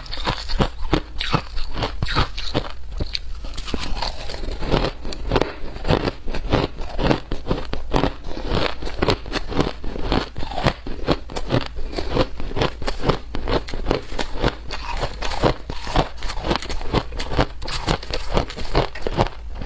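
Ice being bitten and chewed close to the microphone: a dense, unbroken run of sharp crunches and cracks, several a second.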